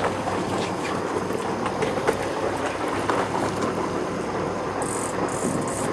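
Boat engine running steadily, with water washing along the hull.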